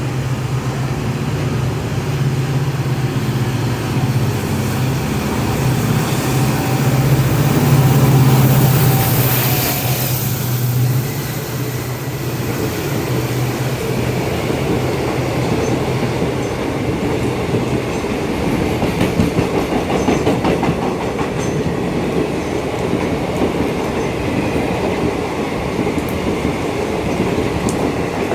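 A train passes close by. A low steady hum builds and is loudest about eight to ten seconds in as the front of the train goes past. It then gives way to a long run of fast wheel clatter over the rail joints as the cars roll by.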